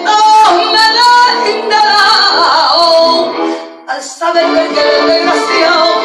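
Instrumental interlude of a copla backing track: a melody over sustained chords, dipping briefly about four seconds in before carrying on.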